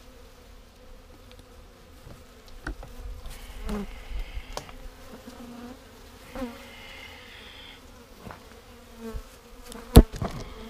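Honeybees buzzing around an open hive, a steady hum with individual bees passing close now and then. A few light knocks, the loudest a sharp knock near the end.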